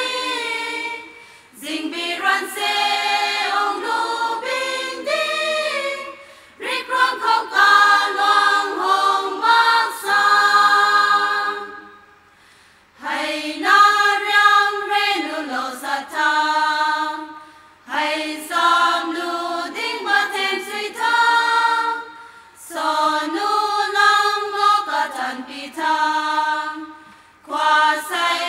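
Women's choir singing unaccompanied, in sung phrases broken by short pauses for breath, with a longer pause about twelve seconds in.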